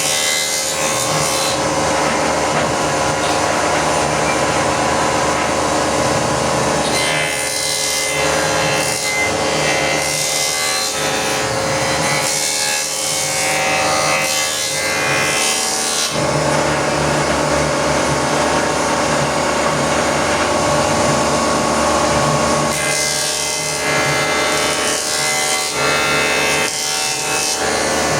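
Electric wood planer machine running, its motor giving a steady hum and whine while the cutters shave wood in long passes, the cutting noise thickening and easing in stretches.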